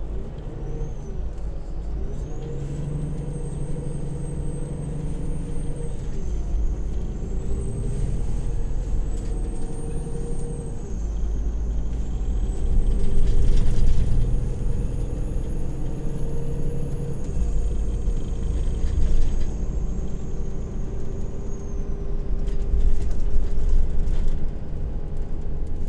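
Irisbus Crossway coach heard from inside the passenger cabin on the move: a low engine rumble whose pitch shifts several times as it pulls and changes speed, with a faint high whine that rises and falls. A few short hisses or knocks, the loudest about halfway through.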